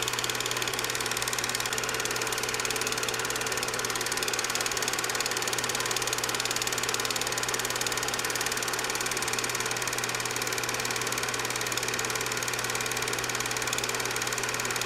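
8mm film projector running steadily: a rapid, even mechanical clatter over a constant motor hum.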